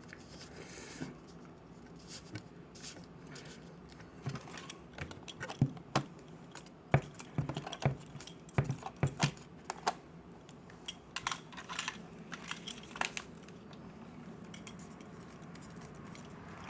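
Hands handling a video camera and fitting a piece onto it: irregular plastic clicks and taps with some rustling, busiest in the middle stretch.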